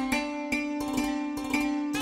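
Background music led by a plucked string instrument, with a new note about twice a second.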